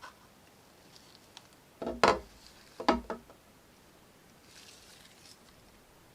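Hard objects, likely the 3D printed crater models, being handled and set down: two short clusters of knocks about a second apart, with a few light ticks and a soft rustle afterwards.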